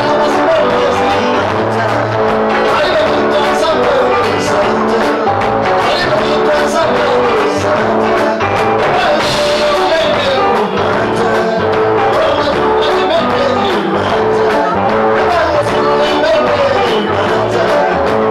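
A live band playing, with a singer's voice gliding over the accompaniment.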